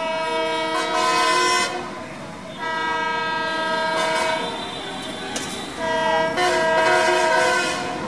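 Multi-tone air horn of a WDP-4 diesel locomotive sounded in three blasts, a short one, a longer one of about three seconds, and a short one near the end, as warning on the approach to a level crossing.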